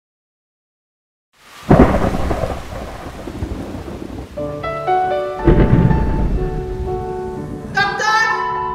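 After about a second and a half of silence, a thunderstorm: steady rain with a loud thunderclap that rolls on, and a second clap about four seconds later. A few sustained music notes come in between the claps.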